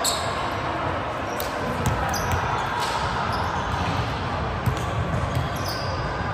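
Din of a large indoor sports hall during volleyball play: a steady wash of noise with scattered sharp thumps of volleyballs being hit and bouncing on the courts, and faint voices.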